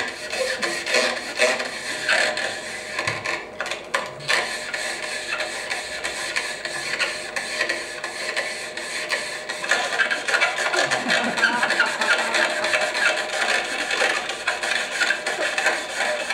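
Long rubber modelling balloons squeaking and rasping as they are rubbed and stroked, heard played back over a hall's speakers; the rubbing grows louder about ten seconds in.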